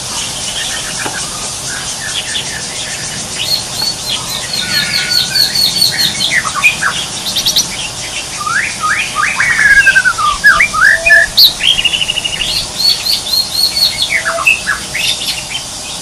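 Several wild birds chirping and calling in quick, overlapping short notes, louder around the middle, over a steady high-pitched hiss.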